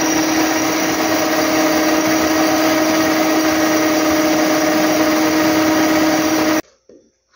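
Philco stand mixer motor running with a steady whine, its wire whisk beating egg whites toward stiff peaks; it is switched off and cuts out suddenly near the end.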